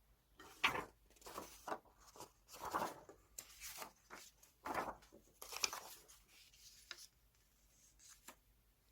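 Paper being handled close up: a string of short rustles and light taps as magazine clippings are moved and pressed into place. The sounds stop about seven seconds in, with one more small click near the end.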